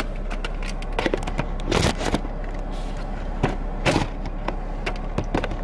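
Steady low hum of a car cabin with the engine running, with scattered clicks, knocks and a few louder thumps of things being handled inside the car.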